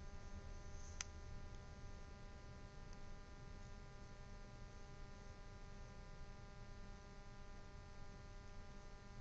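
Faint, steady electrical hum with light hiss, and a single small click about a second in.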